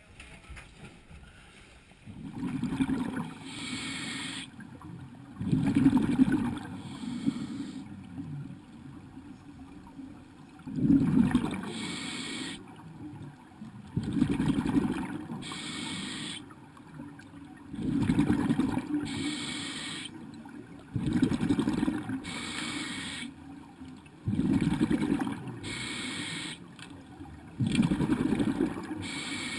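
Scuba diver breathing underwater through a regulator. A regular cycle of a hissing inhale and a loud, rumbling burst of exhaled bubbles repeats about every three and a half seconds, starting about two seconds in.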